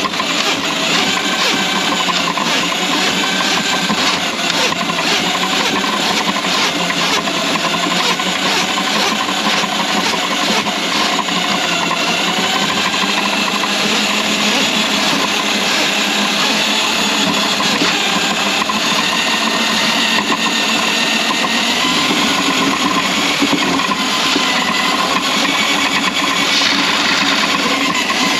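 Electric drain-cleaning machine running steadily, its cable turning inside a kitchen drain line clogged with grease.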